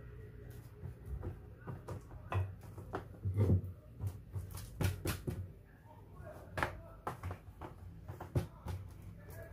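A hand spreading softened butter over a sheet of rolled-out dough on a stone counter: soft smearing with scattered light taps and knocks at irregular moments.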